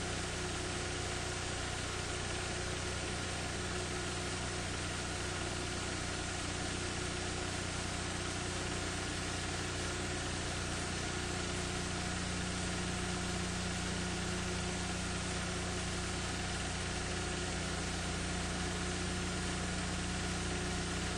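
Steady electrical hum with an even hiss, unchanging throughout: the noise floor of a transfer of footage that has no sound of its own.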